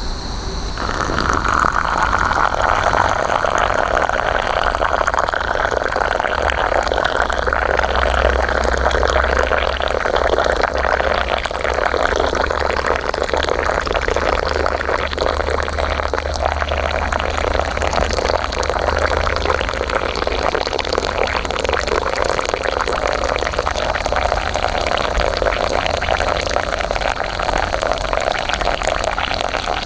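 Water poured in a steady stream into a glass bowl of powdered tulsi-moringa tea, splashing and filling the bowl. The pour starts about a second in.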